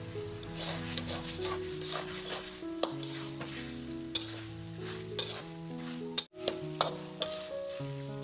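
Metal spatula stirring and scraping meatballs through spicy sauce in a hot wok: sizzling with sharp clicks of the spatula against the pan, over background music. The sound drops out briefly about six seconds in.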